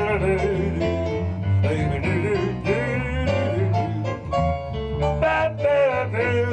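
A man singing a song into a microphone, holding notes with vibrato, over instrumental accompaniment.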